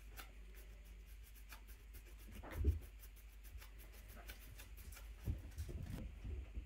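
Kittens moving about at a plastic bowl on carpet: a fast run of faint ticking and rubbing, with a soft thump about two and a half seconds in and a few more near the end.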